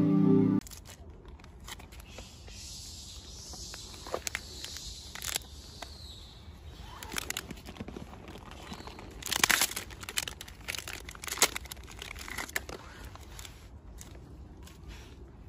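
Plastic snack wrapper crinkling and rustling in irregular crackles as a macaque handles it and pulls food out, loudest about nine and a half seconds in.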